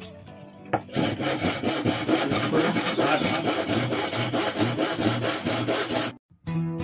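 Hand saw cutting wood in rapid, even rasping strokes, stopping abruptly about six seconds in.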